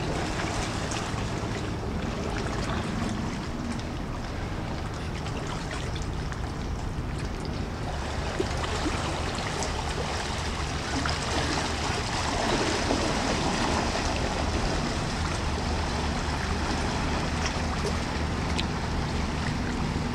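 Small motor cruiser's engine running steadily as the boat pulls away, with the churn of its propeller wash; the drone swells a little about twelve seconds in.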